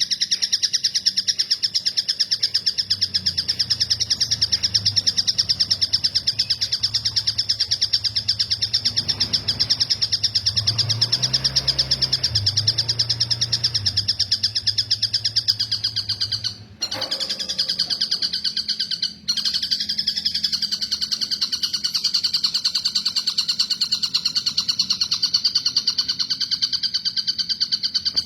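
Tengkek buto (a kingfisher kept as a cage bird) giving its high 'cililin' call, a very rapid trill held on without pause. It breaks off twice briefly about two-thirds of the way in, over a low hum in the first half.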